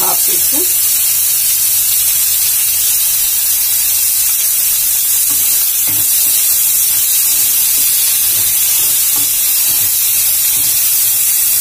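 Chopped vegetables sizzling in butter and oil in a frying pan, a steady high hiss, with a wooden spatula stirring through them now and then.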